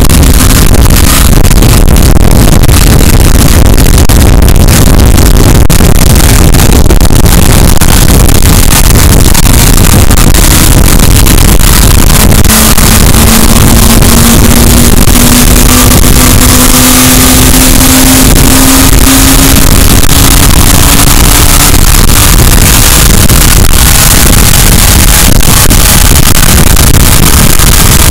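Porsche Carrera 2.7 RS air-cooled flat-six, freshly run in with new cams, running very loud under load on an engine dyno. Its pitch climbs slowly and steadily as the revs rise from about 2,400 to 6,600 rpm in a power run.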